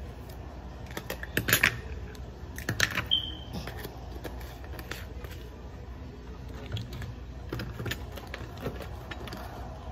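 Plastic seasoning shaker shaken and tapped over meat on a counter: scattered clicks and knocks, the loudest clusters about one and a half and three seconds in, with a short high squeak just after the second, over a low steady hum.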